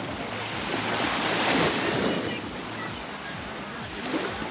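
Baltic Sea surf washing onto a sandy beach: a wave's noise swells to its loudest about a second and a half in, then eases off.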